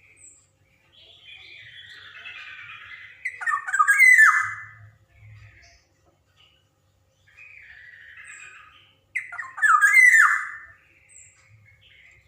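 Black-naped oriole (kepodang emas) calling: a raspy, scratchy chatter followed by loud, harsh squawking notes that fall in pitch, the whole phrase given twice about six seconds apart.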